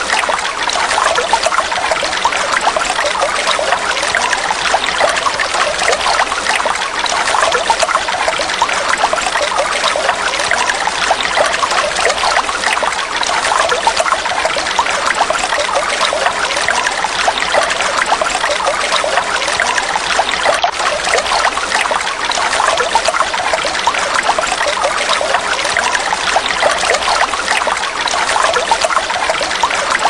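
Shallow stream water trickling steadily over pebbles.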